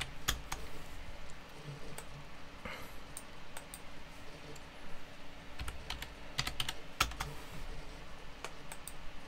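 Computer keyboard keys being typed in several short runs of clicks with pauses between.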